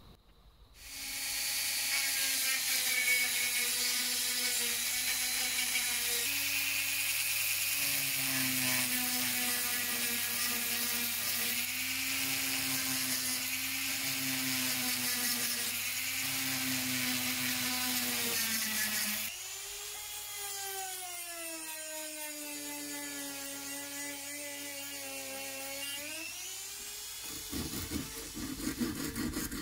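A high-speed rotary tool with a sanding drum grinding the steel of an old tailor's scissors: a steady high whine with a gritty hiss. About two-thirds of the way in it gets quieter and its pitch wavers up and down. Near the end it gives way to the rhythmic rubbing of hand sanding with sandpaper.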